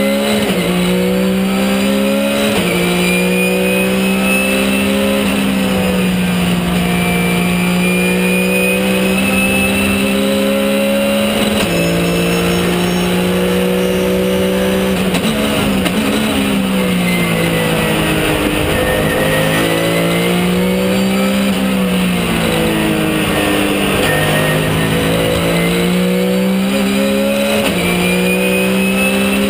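Porsche 997 GT3 Cup race car's flat-six engine heard from inside the cockpit at racing speed. The revs climb and drop sharply on each upshift, and in the middle fall in steps through a run of downshifts before climbing again.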